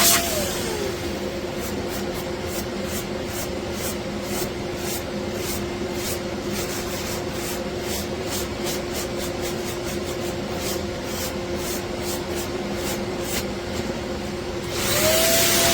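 Electric random orbital sander running. Its motor pitch drops in the first second, holds lower and steadier through most of the stretch, then rises back up near the end.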